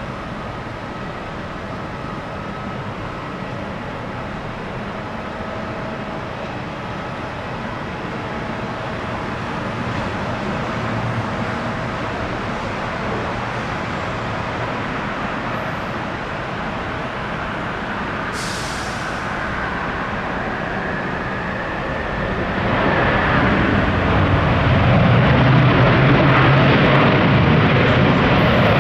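Jet airliner engines: a steady rush with a faint whine that swells much louder about 23 seconds in, with a brief high hiss a few seconds before.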